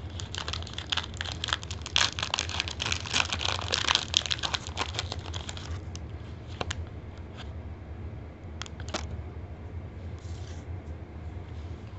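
Foil wrapper of a Pokémon booster pack being torn open and crinkled for about six seconds, then a few faint clicks and rustles as the cards are handled.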